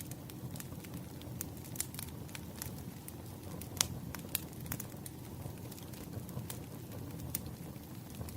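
Firewood burning: a wood fire crackling with irregular sharp pops over a low steady rumble, the loudest pop about four seconds in.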